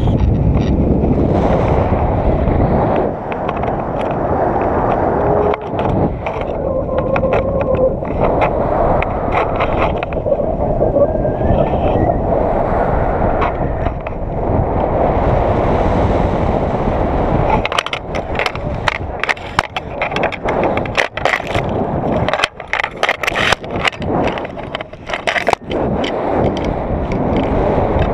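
Wind rushing over an action camera's microphone in flight under a paraglider, a steady low rumble. From about two-thirds of the way in it breaks into a run of rapid crackles and scratchy clicks for several seconds before the rumble settles again.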